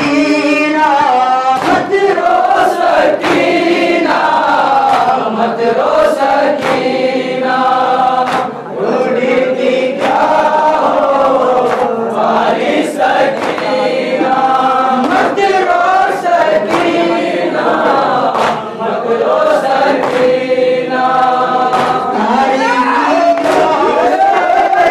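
A boy chanting an Urdu noha lament into a microphone, with a group of voices joining in. Sharp slaps of hands beating on chests (matam) come about once a second.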